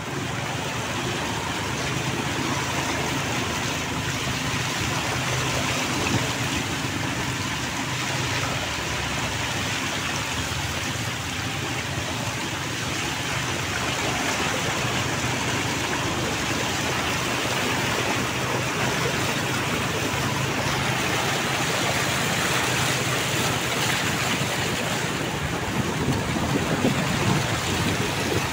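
Steady rush of rain and splashing water as vehicles drive through a flooded street, with a low engine hum under it for the first half and a louder splashing swell near the end.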